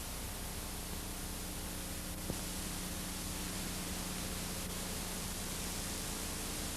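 Steady static hiss with a faint low hum, and a single click a little over two seconds in.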